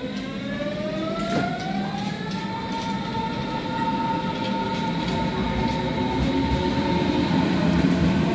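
Berlin S-Bahn electric train pulling out along the platform: its traction motors give a whine that rises in pitch for the first two or three seconds and then holds steady, over the rumble of the wheels on the rails, growing slowly louder as the cars pass.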